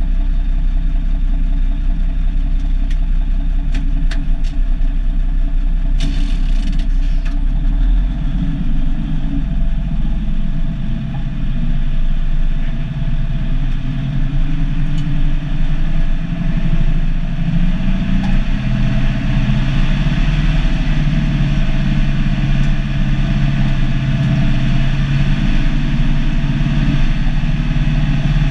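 Turbocharged Cummins NH-180 six-cylinder diesel of an International F-210D dump truck running under way, heard from inside the cab, with the engine note changing with the driver's gear shifts. A few short rattles a few seconds in.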